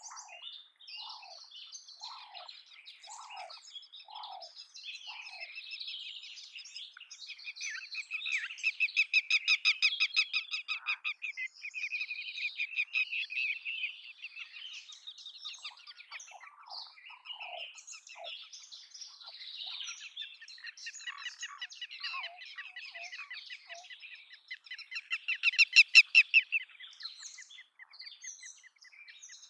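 Red-wattled lapwing calling: rapid runs of sharp, loud notes, one long stretch about eight to eleven seconds in and the loudest near the end, with other chirping notes between and a row of short downward notes in the first few seconds.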